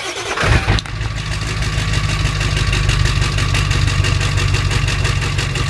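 Ford 7.3 L Power Stroke V8 turbodiesel starting cold with its glow plugs disconnected and the exhaust plugged with rags for back pressure: it fires with a loud burst about half a second in, then settles into a steady idle.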